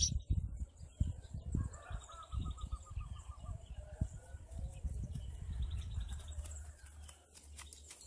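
Faint bird chirps, with a rapid trill about two seconds in, over low wind rumble on the microphone.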